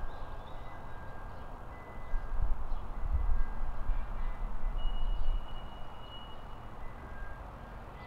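Outdoor ambience: a steady hiss with a low rumble that swells about two seconds in and fades by about six seconds. Faint thin high tones come and go, one held for about two seconds past the middle.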